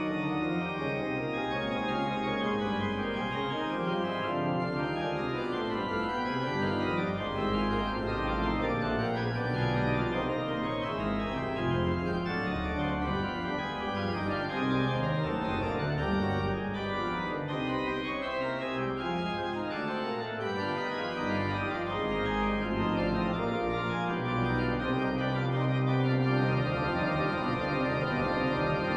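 Organ playing slow, sustained chords over a low bass line.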